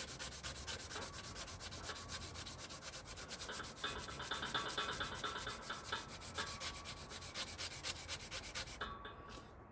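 Power tool with an abrasive head sanding out the U-joint cup bores of a yoke: a fast, even grinding rasp of about ten strokes a second, stopping near the end.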